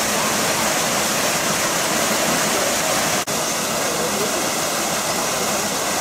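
Waterfall rushing, a dense, steady hiss of falling water, broken by a brief dropout a little over three seconds in.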